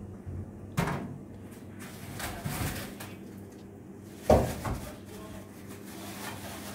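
Two sharp knocks, the second and louder about three and a half seconds after the first, with faint handling noise between them.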